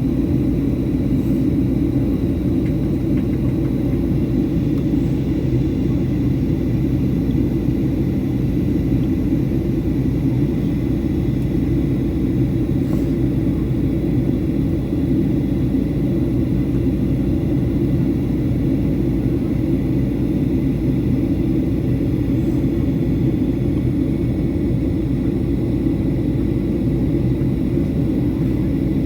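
Steady in-flight noise of a Boeing 737-800 during descent: a constant low rumble of airflow and its CFM56 engines, with a faint steady high whine over it.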